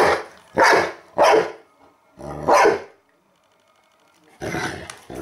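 Cane Corso barking in play, four short loud barks in quick succession, then a noisier fifth bark near the end after a brief pause.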